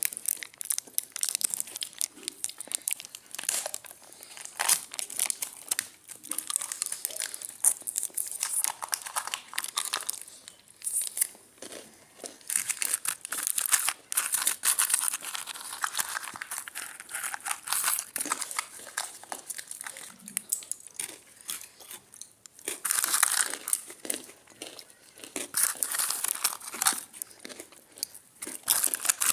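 Irregular crinkling and rustling close to the microphone, with louder spells of dense crackle.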